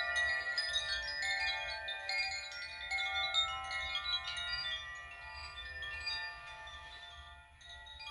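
Wind chimes tinkling: many overlapping high ringing notes struck at random, thinning out about seven seconds in before picking up again near the end, over a faint low hum.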